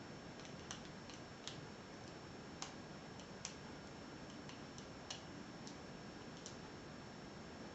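Faint, irregularly spaced small metallic clicks of a lock pick and tension wrench working inside a 70 mm disc padlock while it is being single pin picked, about ten clicks over several seconds against a steady hiss.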